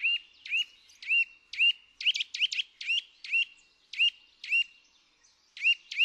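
Eurasian nuthatch calling: a series of short, clear, upward-hooked notes about two a second, with a quicker run of notes around two seconds in and a brief pause near the end.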